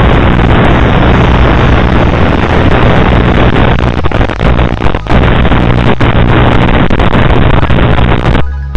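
Loud, distorted rushing noise over a steady low hum, breaking off suddenly near the end.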